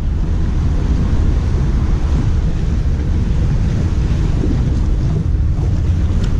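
Wind buffeting the camera microphone on an open boat deck as a loud, steady low rumble, mixed with water washing against the boat.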